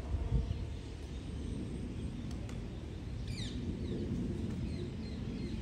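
Sparrows chirping: one quick falling chirp about three seconds in, then a few fainter short chirps, over a steady low outdoor rumble.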